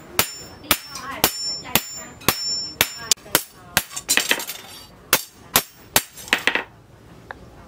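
Hand hammer striking a long steel knife blade on a steel post anvil, about two blows a second, each with a high metallic ring; the blows stop near the end.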